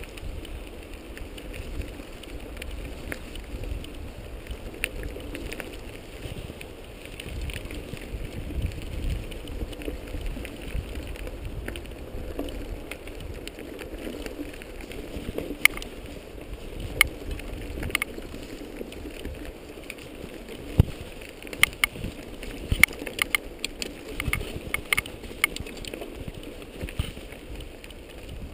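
Mountain bike riding over a rough dirt trail: a steady low rumble of tyres and wind on the camera, with frequent sharp rattles and clicks from the bike over bumps.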